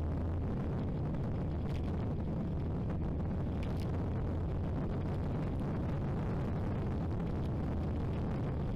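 Ariel Atom 3 Supercharged's supercharged Honda 2.0-litre four-cylinder engine running steadily, a low, even rumble with no revving.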